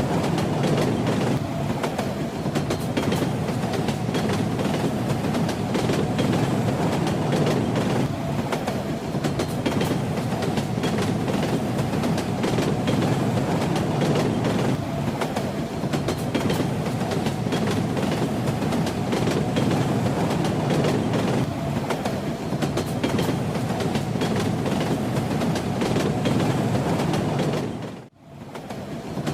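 Train wheels rattling over the rails: a steady rumble of a moving railway carriage with rapid clickety-clack. About a second before the end it briefly drops almost to silence, then returns.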